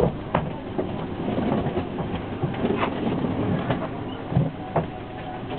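Interior of a Hong Kong public light bus (minibus): the engine runs with a low hum while the cabin and fittings give off irregular clicks and rattles.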